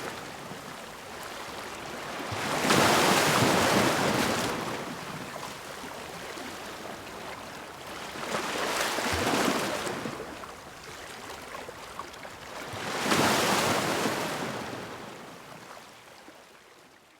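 Ocean waves breaking on a shore: three surges a few seconds apart, each swelling and washing back with a hiss of water between them, fading out near the end.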